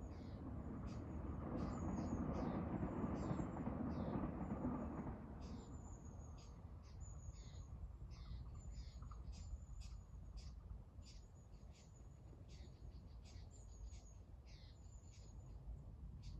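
Songbirds chirping and whistling with short, high, quickly falling notes, several a second throughout. A broad rushing noise swells and fades over the first five seconds and is the loudest sound, over a steady low rumble.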